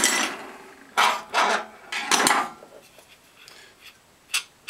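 Handling of a disassembled blower motor and its small metal fan on a workbench: four short scraping rubs in the first two seconds or so, then a small click near the end.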